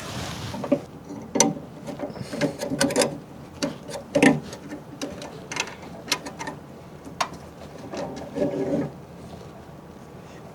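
Irregular clicks and knocks of a camera-mounting screw being turned by hand and a DSLR being handled on its bracket, dying away about nine seconds in.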